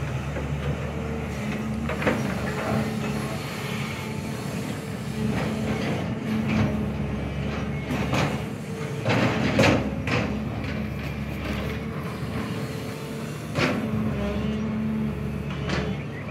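SANY hydraulic excavator's diesel engine running steadily while it digs, with a sharp knock or clank from the working boom and bucket every few seconds, the loudest about nine to ten seconds in.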